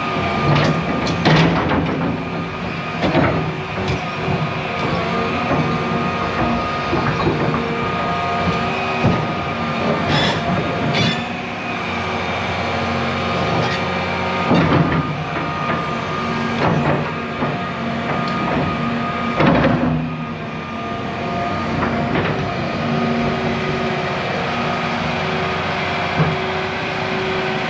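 John Deere 350G excavator running with a steady diesel engine note, with several sharp metal knocks and clunks scattered through it.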